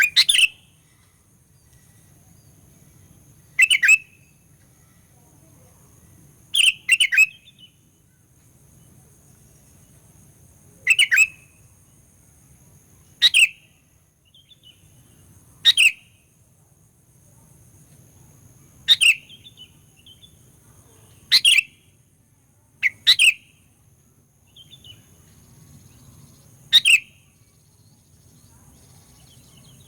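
Sooty-headed bulbul giving short, sharp calls about every two to three seconds, ten in all, two of them doubled. A faint steady high-pitched drone runs behind them.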